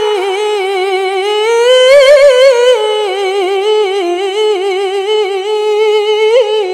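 A woman reciting the Quran in the melodic tilawah style, holding one long ornamented note on a single vowel. The pitch wavers in fine turns, climbs about two seconds in, then settles back down.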